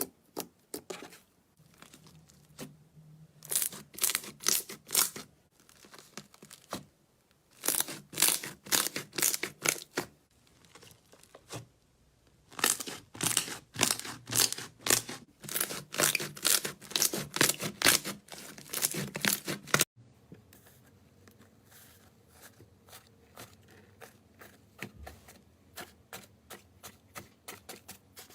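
Slime being squeezed and stretched by hand, giving runs of sharp crackling clicks in several bursts. About 20 s in the sound cuts abruptly to a quieter stretch of softer, sparser clicks.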